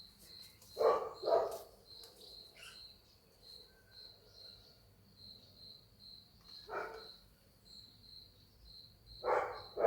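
Dogs barking in short single barks: two close together about a second in, one more later and another near the end. A steady high insect chirping, about three pulses a second, runs underneath.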